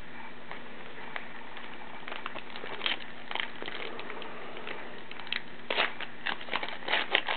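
Trading cards being shuffled and set down with light clicks and rustles, then a 2009 Upper Deck Goodwin Champions card pack's plastic wrapper crinkling and being torn open, with dense crackling in the last couple of seconds.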